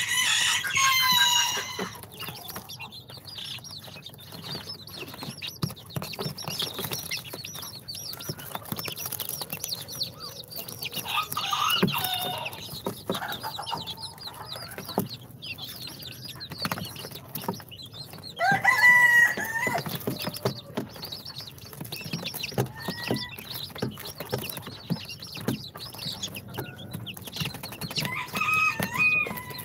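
Baby chicks peeping, in short high calls that bend in pitch, with louder clusters at the start, about twelve seconds in, around nineteen seconds and near the end.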